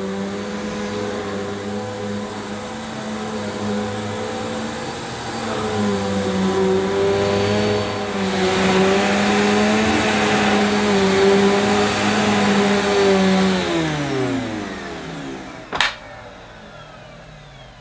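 Electrolux Cyclonic Lite bagless upright vacuum cleaner running over carpet, its motor whine dipping and rising as it is pushed, with the brushroll working the pile. It is switched off about 14 seconds in and the motor winds down in a falling whine, followed by a single sharp knock.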